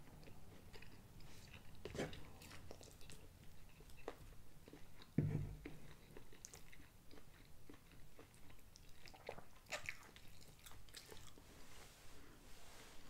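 Faint chewing and eating sounds, with light clicks of a metal fork against a plate and one louder dull knock about five seconds in.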